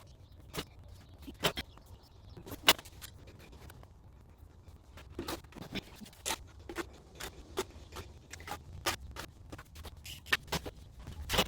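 Irregular clicks, taps and light scrapes of hands and tools working on a mortar-and-clay sculpture, about one or two a second, the sharpest knock a little under three seconds in.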